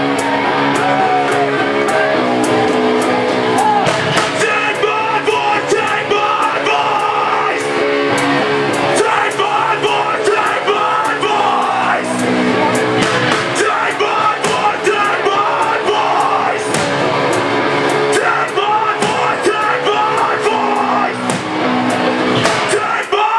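A live rock band playing loud: electric guitars and a drum kit, with a vocalist shouting and singing into a microphone. The sound changes sharply just before the end.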